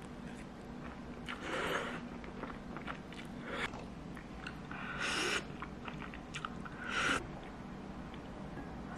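Eating sounds from a bowl of fried rice: a spoon scooping against the ceramic bowl and chewing, in four short bursts about two seconds apart, over a faint steady hum.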